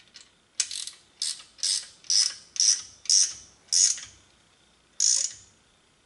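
Ratcheting box-end wrench clicking through about eight short back-strokes, roughly two a second, with a pause before the last one, as it tightens a brass boost-reference hose-barb fitting into an aluminum intake manifold.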